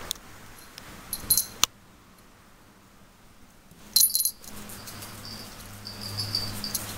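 Small bell on a kitten's collar jingling in short bursts as the kitten moves, about a second in and again around four seconds in.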